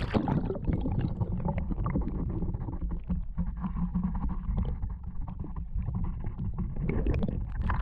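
Shallow river current heard through a submerged camera: a muffled, steady low rumble with many small crackles and clicks.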